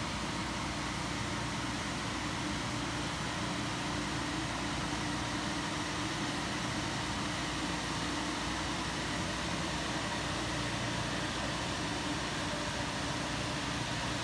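Sino Star S9 touchless car wash machine running over a car: a steady rushing noise with a faint low hum underneath.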